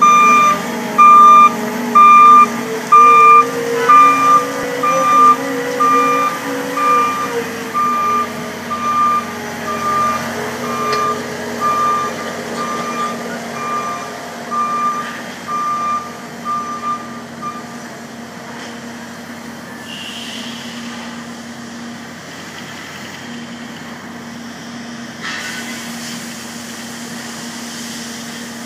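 Skid steer loader's reversing alarm beeping about once a second, growing fainter as the machine backs away and stopping about 18 seconds in, over its diesel engine running steadily; the engine revs up briefly a few seconds in, and after the beeping stops only the engine is heard.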